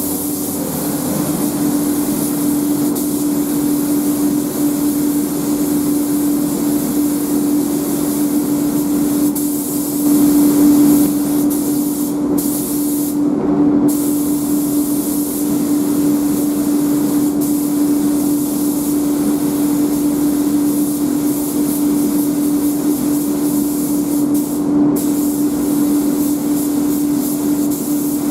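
Compressed-air paint spray gun hissing steadily as paint is sprayed, the hiss cutting out briefly three times as the trigger is let go. A steady hum runs underneath.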